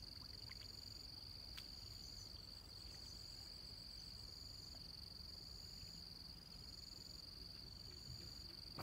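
Faint insect chorus: a steady high-pitched trill, with a second, higher call repeating in short bursts above it.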